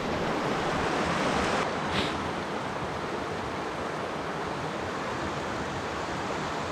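Steady rushing of a fast-flowing creek, with a faint tap about two seconds in.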